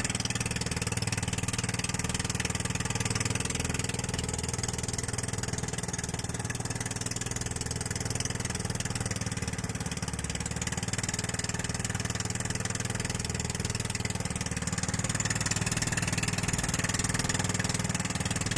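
Small outrigger fishing boat's inboard engine running steadily at an even pace.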